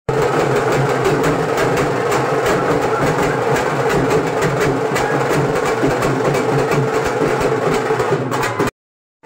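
Loud, distorted drum-led dance music with fast, closely spaced beats, cutting off suddenly near the end.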